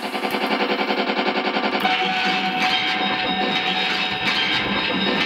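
Electronic music with a rapid pulsing rhythm; about two seconds in, a steady held tone comes in over it.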